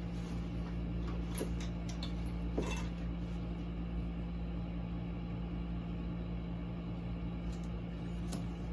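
Steady low electrical hum with a few faint clicks and knocks.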